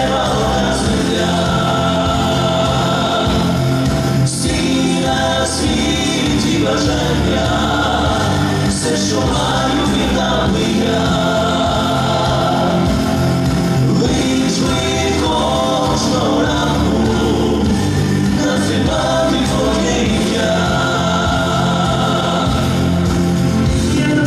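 A male vocal trio singing a song with musical accompaniment, several voices together.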